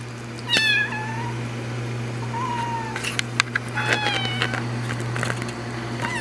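Tabby kitten meowing several times in short calls, the first and loudest falling in pitch, over a steady low hum.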